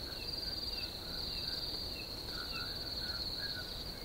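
Steady high-pitched insect trill, with short chirps repeating irregularly beneath it.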